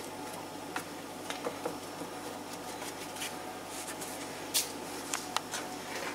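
Hands pressing and stretching pizza dough out in an oiled metal baking tray: soft patting and squishing of the dough, with scattered light clicks and taps against the tray.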